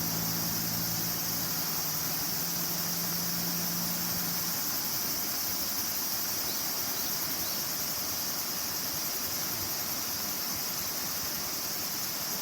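Steady rushing of a mountain stream swollen in flood. A low steady hum sits under it and stops about four seconds in.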